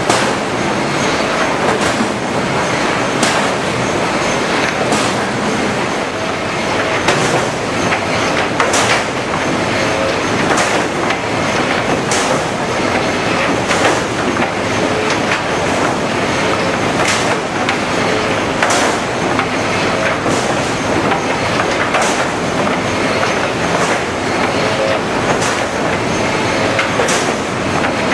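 HewSaw R200 chipper-canter sawing line running: a loud, steady industrial din with sharp clanks every second or two.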